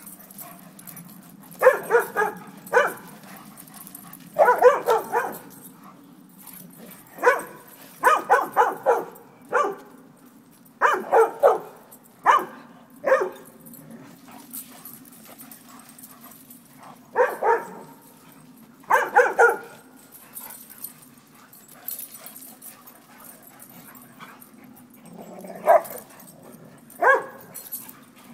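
Dogs barking in play while they wrestle, in clusters of short barks with quieter pauses between, loudest in the first half and fewer near the end. A steady low hum sits under them.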